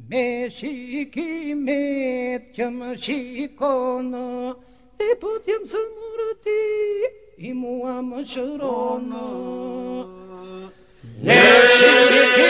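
Albanian Lab iso-polyphonic singing, unaccompanied: a lead voice sings bending, ornamented phrases, with a held drone underneath in places. About 11 seconds in, the full group comes in much louder on a sustained drone.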